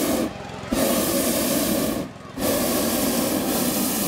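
Hot air balloon propane burner firing in long blasts, shut off briefly twice, about a third of a second in and again about two seconds in, each gap under half a second.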